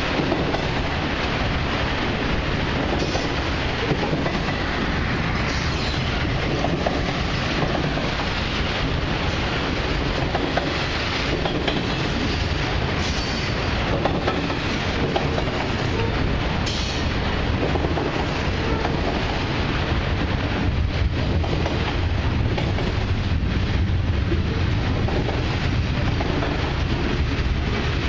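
Freight train of autoracks and boxcars rolling past: a steady noise of steel wheels on rail with a few sharp clacks over the rail joints, the low rumble heavier in the second half.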